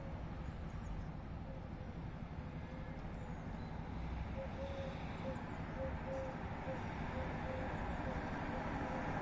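Street traffic heard from a window: a steady rumble of passing cars that grows louder near the end. In the second half, a faint short tone repeats about twice a second.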